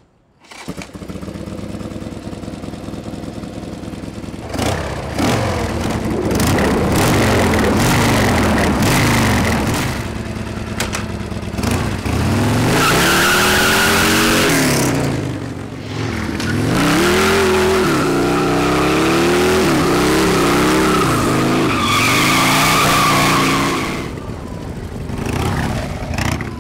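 Stunt motorcycle engine revving up and down again and again while ridden hard. Twice, about halfway through and again near the end, a long loud tire squeal joins it.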